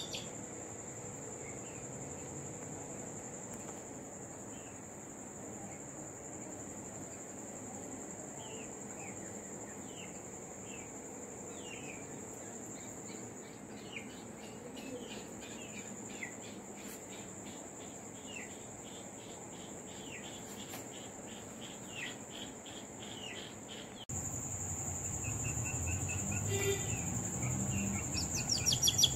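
Crickets trill steadily while a duckling peeps over and over, each peep a short falling chirp. Near the end the sound cuts to a louder low rumble and clatter.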